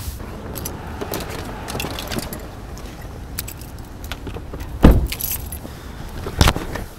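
Jangling and clinking of small handled metal items over a low background hum, with a heavy thump about five seconds in and a lighter thump about a second and a half later.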